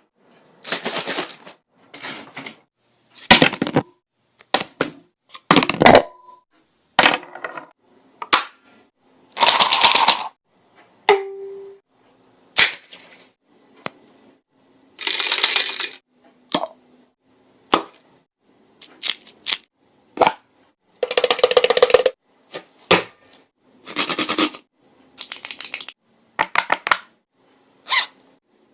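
A person making a rapid string of short mouth sounds: sharp clicks and pops mixed with hissing bursts of up to about a second, a few carrying a brief pitched tone, each one separated by a short gap.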